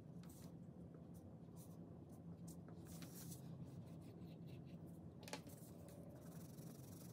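Faint rustling and scraping of a folded sheet of paper being handled and moved on a tabletop, with a sharper crinkle about five seconds in, over a faint steady hum.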